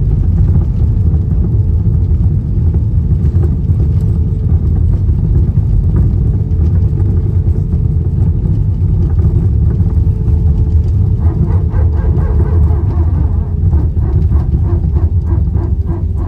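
Steady low rumble of a moving vehicle, heard from inside it. A faint, quick rhythmic ticking joins in during the last few seconds.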